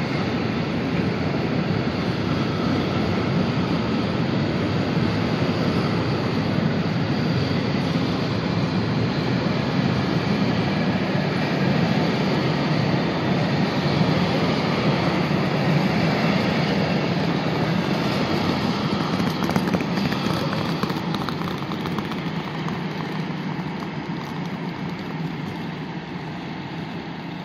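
Freight train of container wagons passing through the station: a steady low rumble and rattle of wheels on the rails, fading away over the last several seconds.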